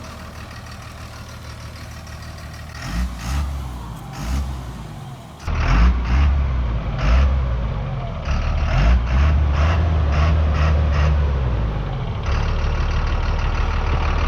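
Truck engine running at low revs, a steady low rumble that swells briefly a few times and grows markedly louder about five and a half seconds in.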